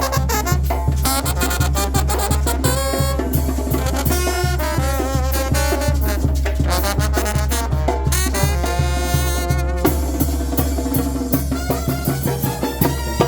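Oaxacan brass band playing: brass melody over a steady drum beat.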